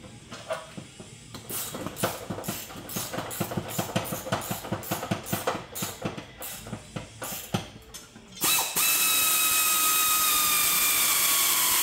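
A ratchet on a long extension clicking steadily, about four clicks a second, for several seconds. About two-thirds of the way in it gives way to a power ratchet running flat out with a loud hiss and a whine that slowly drops in pitch as a transmission-to-engine bolt draws tight.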